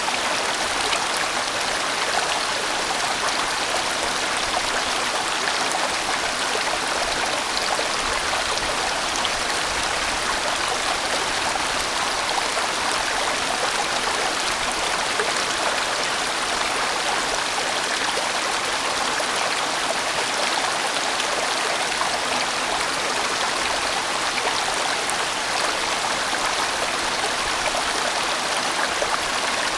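A large valley stream flowing, a steady, even sound of running water with no change throughout.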